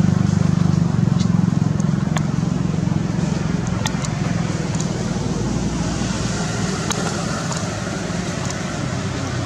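A motor engine running steadily with a low hum that eases slightly toward the end, with a few faint scattered clicks.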